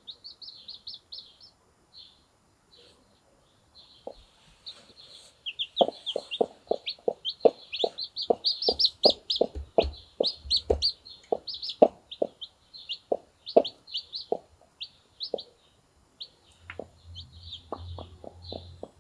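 Newly hatched chicks peeping rapidly and continuously, high-pitched. From about six seconds in, a Brahma broody hen clucks low and regularly, about two clucks a second, then pauses and starts again near the end.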